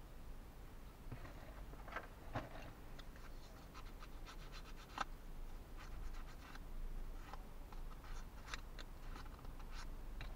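Thin laser-cut wooden kit parts being handled and worked out of their sheet: scattered light clicks and small snaps, some in quick little runs, over a steady low hum.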